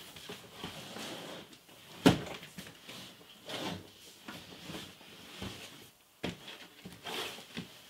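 Large cardboard toy box being handled, tilted and set down on a table: soft scraping and rubbing of cardboard with scattered light knocks, one sharper knock about two seconds in.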